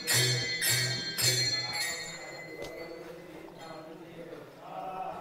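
Temple bhajan music: three ringing metallic strikes with a low thump, about half a second apart in the first second and a half, then voices singing the devotional song more softly.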